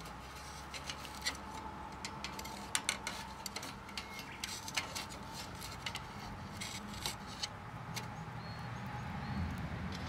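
Metal tongs clinking and scraping against a small titanium wood stove and the burning wood inside it, a run of irregular sharp clicks as the wood is moved around in the firebox.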